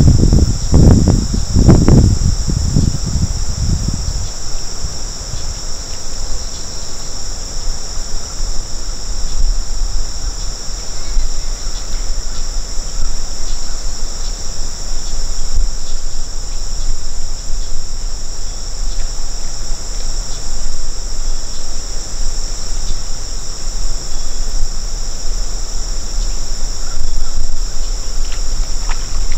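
A steady insect chorus, a high continuous trill that never lets up, over a low rumble of wind on the microphone. In the first few seconds there is loud low rustling and knocking of handling noise.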